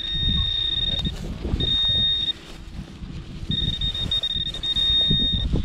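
Garrett Pro-Pointer handheld pinpointer giving a steady high electronic tone that cuts in and out three times as it is moved over the hole, signalling metal in the soil.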